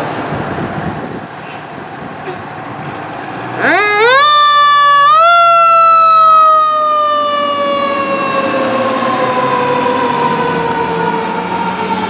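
Fire engine siren on a 2013 E-One Typhoon pumper, winding up in a fast rising whine about three and a half seconds in, pushed up again a second or so later, then slowly winding down in pitch. Before it, and under it, the truck's engine runs as it pulls out.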